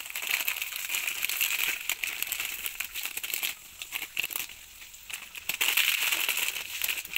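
Plastic Maggi instant-noodle wrapper crinkling and rustling as it is handled and squeezed. The crinkling thins out in the middle and comes back louder near the end.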